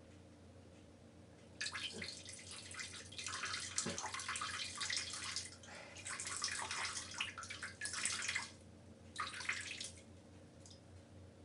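A man urinating into a toilet bowl: a splashing stream starts a couple of seconds in, runs for about seven seconds and stops, then comes back briefly in one short last spurt.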